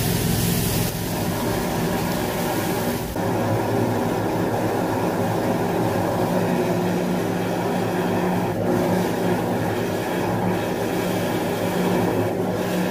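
High-pressure drain jetter running steadily, its engine-driven pump humming, as its hose blasts water through a grease-trap drain line and dirty water gushes out of the outlet. A loud hiss drops away about three seconds in.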